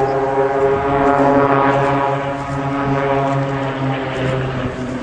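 Piston engines of a formation of small propeller aerobatic planes droning overhead, a steady hum that eases a little near the end.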